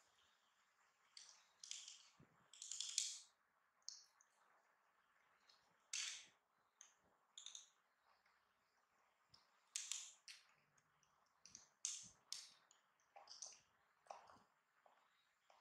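Baby macaques biting and chewing crisp snack chips: a scatter of short, sharp crunches with quiet gaps between them.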